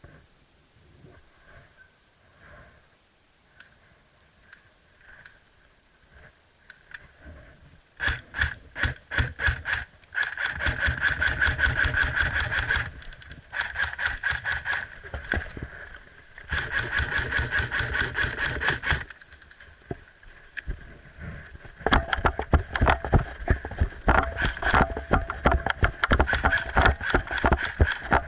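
Airsoft electric gun firing full-auto: a rapid mechanical rattle with a steady motor whine, starting about eight seconds in after some faint ticks and coming in several bursts of two to three seconds with short pauses between.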